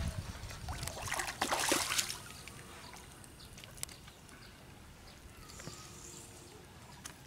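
A hooked fish thrashing and splashing at the water's surface, loudest for about a second early on, then quieter with a few faint ticks as it is lifted out of the pond.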